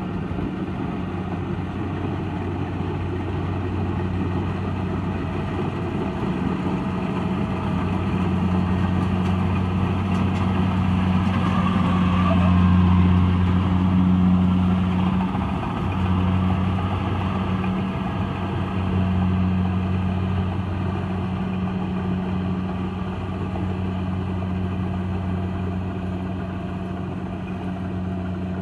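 Diesel engine of a Kubota DC70 Plus rice combine harvester running steadily with a low hum. It grows louder to a peak about halfway through, then eases off again.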